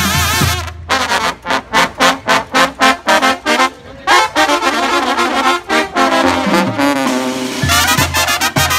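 Music led by brass instruments such as trombones and trumpets: a run of short, punchy notes, then longer held notes, with the low bass dropping out in the middle and coming back in near the end.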